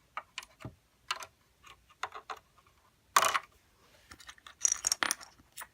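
Light plastic clicks and clacks from a LEGO coin vending machine mechanism being worked by hand as a quarter is taken, with one louder clack about three seconds in and a quick cluster of clicks near the end.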